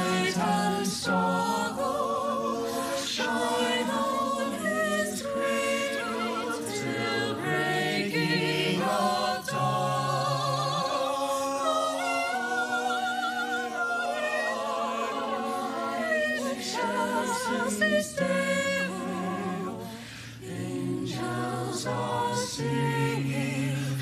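Mixed choir of boys and girls singing a cappella in parts, held chords with vibrato and no instruments.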